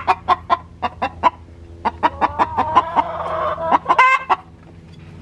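Hen clucking in quick runs of about five clucks a second, breaking off briefly, then a longer drawn-out squawk about three seconds in and a sharp call just after, before falling quieter near the end.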